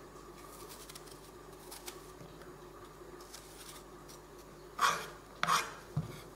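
Small kitchen knife faintly scraping and cutting the core out of a red apple half. Near the end come three louder knocks on a wooden cutting board as the knife and apple half are set down, the last one a dull thud.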